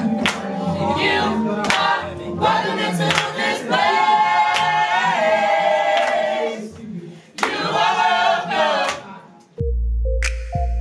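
A group of young voices singing a gospel song together, with hand claps marking the beat. About nine and a half seconds in it cuts to electronic music with a heavy deep bass.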